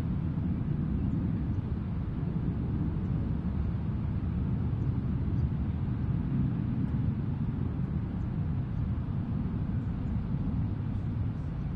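Steady low outdoor rumble, even throughout, with no distinct blast.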